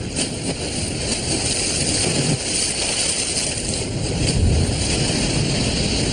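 Cartoon sea sound effect: a steady rushing of surf and spray as a small boat skims fast over the waves.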